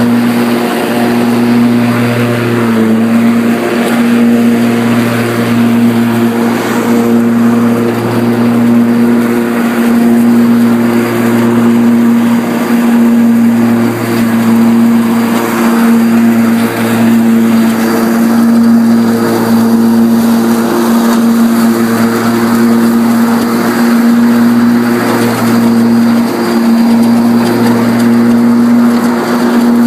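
Electric-converted Craftsman lawn tractor with a Motenergy ME1004 motor, driving and mowing with its blades engaged, under a heavy cutting load of about 90 amps. It makes a loud, steady hum of unchanging pitch over a rushing noise from the cutting deck.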